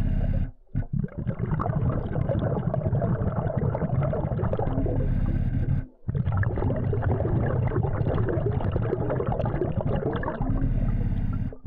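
Underwater sound of a diver breathing on a BLU3 Nemo hookah system: bubbles gurgling over a steady low hum. It cuts out briefly about half a second in and again about six seconds in.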